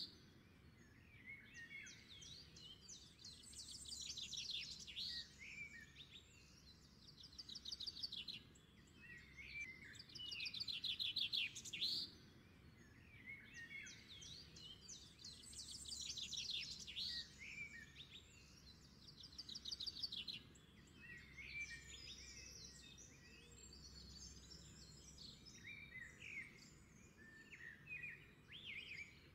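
Songbirds chirping and trilling in waves, the same run of calls coming round about every twelve seconds like a looped birdsong track.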